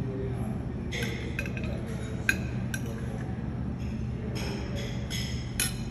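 Dishes and cutlery clinking a number of times, with a sharper clink about two seconds in and another near the end, over a steady low hum.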